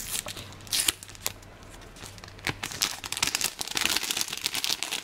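Clear plastic card sleeve crinkling as a photocard is pulled out of it: a few sharp crackles, one louder about a second in, then denser crinkling from about halfway.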